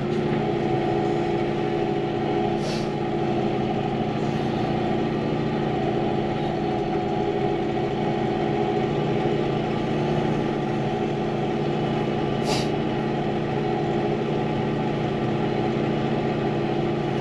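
Diesel tractor engine running steadily as it plows snow, at an even pitch. Two brief high ticks come through, a few seconds in and again about two-thirds of the way through.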